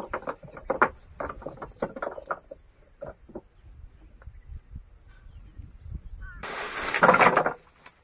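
Fishing net being paid out by hand over the side of a wooden boat, with short, scattered handling sounds. Near the end comes a loud rustle lasting about a second, as a woven plastic sack is pulled off the heap of net.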